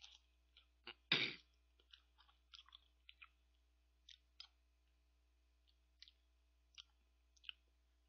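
Close-miked mouth sounds of a man eating soft ice cream from a spoon: small wet clicks and lip smacks scattered through, with one louder smack about a second in.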